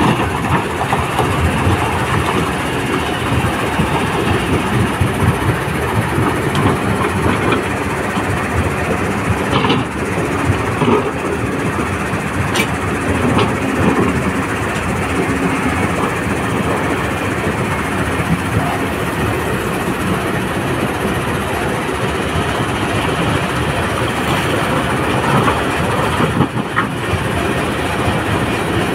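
Kobelco SK200-10 hydraulic excavator's diesel engine running steadily under load while the machine digs and moves rock, with a few sharp knocks as the bucket works the stones.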